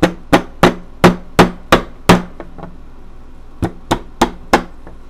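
A hand tool tapping M3 nuts into the nut traps of a 3D-printed plastic part: sharp knocks, seven in quick succession at about three a second, then after a pause of about a second and a half, four more.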